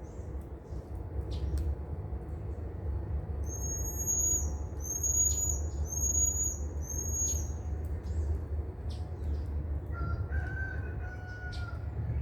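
A bird calling four times in quick succession with short, high whistled notes that each drop at the end, over a steady low rumble with scattered faint clicks.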